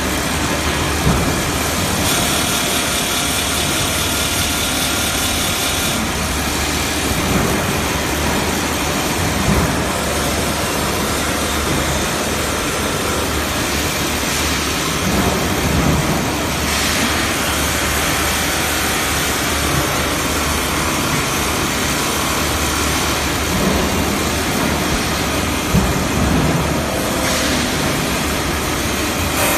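CNC outer polishing machine running on an aluminium pan: a steady, loud mechanical whir with a grinding hiss from the polishing wheel on the pan's outer wall, its tone shifting every several seconds as the machine moves to another part of the pan.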